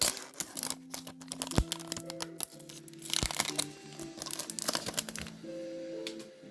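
Foil booster-pack wrapper crinkling and tearing as a Pokémon card pack is opened, with crackles and clicks over soft background music with held notes.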